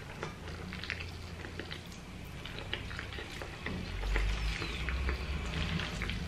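Close-miked eating sounds of black bean sauce noodles: small wet clicks and smacks of chewing, scattered irregularly over a low steady hum that grows louder about four seconds in.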